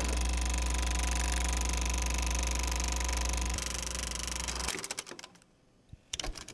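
A steady low mechanical hum that cuts off about four and a half seconds in, followed by a few short faint clicks.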